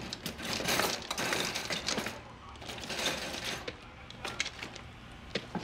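Irregular clinking and rattling of small hard objects being handled, with a faint low hum underneath.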